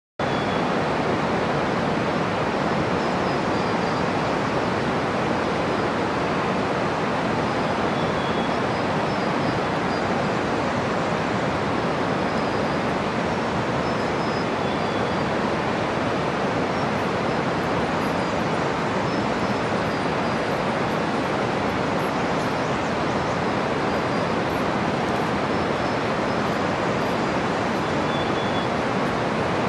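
Steady, even rush of a fast mountain river in the gorge below the suspension bridge, with a few faint high chirps.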